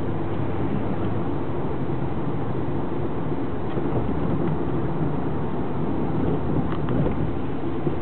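Steady low rumble of a car's engine and tyres on the road, heard from inside the cabin while driving.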